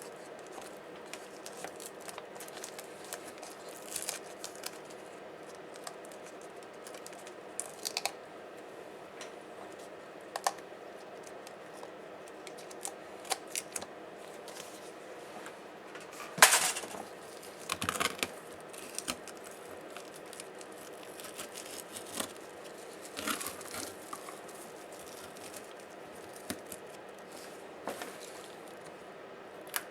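Scattered small clicks and crackles of laptop plastic parts and tape being handled, pried and peeled apart during disassembly, with one louder crackle about halfway.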